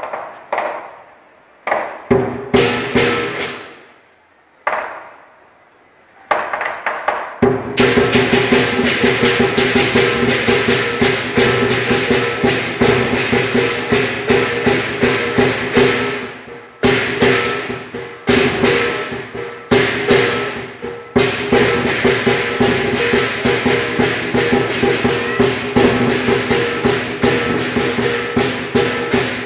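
Lion dance percussion: drum with clashing cymbals and gong. A few separate crashes come first, then a fast, steady beat starts about seven seconds in and runs on, stopping briefly a few times in the middle.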